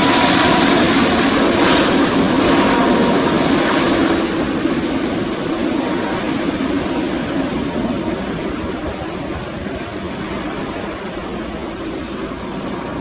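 Airbus A330-300 airliner on final approach with its landing gear down, the jet engines' rush loud as it passes low overhead, then fading steadily as it flies on toward the runway.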